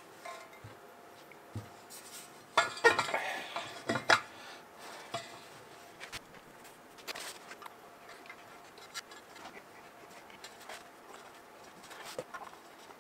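Copper parts of a model steam boiler knocking and clinking together as they are handled and fitted by hand: a burst of clatter about two and a half to four seconds in, then scattered light taps.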